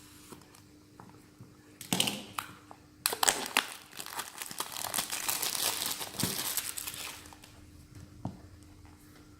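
Packaging being crinkled and crumpled by hand: a short burst about two seconds in, then a dense stretch of crinkling for about four seconds that dies away, with a couple of soft knocks later on.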